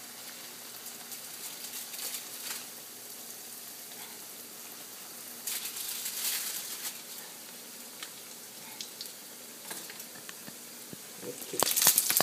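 Johnny cake batter frying in hot oil in a skillet: a steady sizzle, swelling louder each time fresh batter goes into the pan, loudest near the end.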